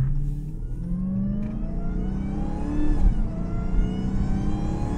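Dodge Hellcat's supercharged 6.2-litre Hemi V8 revving up hard through a Legmaker cold air intake, its supercharger whine climbing in pitch with engine speed. The pitch dips briefly about three seconds in, then climbs again.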